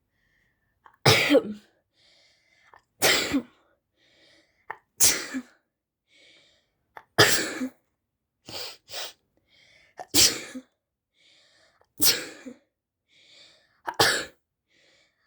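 A person sneezing over and over, brought on by sneezing powder: about seven loud sneezes roughly two seconds apart, with quick breaths drawn in between and a couple of smaller sneezes in the middle.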